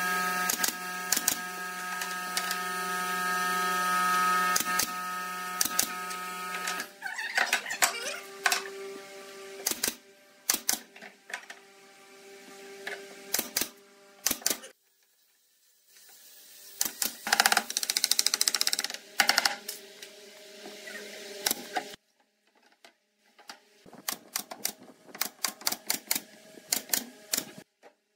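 Pneumatic brad nailer firing nails into pine slats: repeated sharp shots, often in quick runs. A steady hum sits under the first seven seconds or so.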